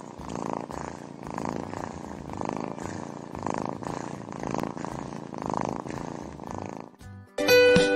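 A kitten purring, a steady rumble that swells and eases about once a second with each breath. It stops near the end, and plucked guitar or ukulele music begins.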